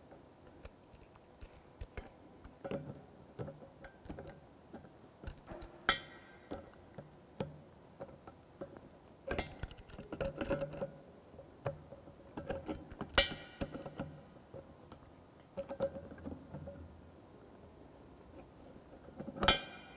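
Metal wrench clicking and scraping on the mixer tap's fittings as they are tightened under a ceramic wash basin. There are scattered light clicks and ticks, with a few short grating scrapes.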